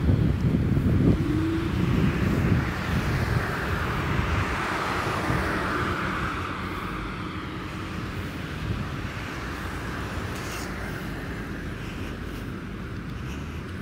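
Street traffic: a car drives past, its tyre noise swelling and then fading over the first half. Wind buffets the microphone in the first few seconds.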